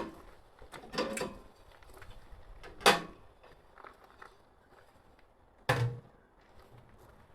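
Four separate knocks and clunks of things being handled and set down, the sharpest about three seconds in and a duller, heavier thud near the end.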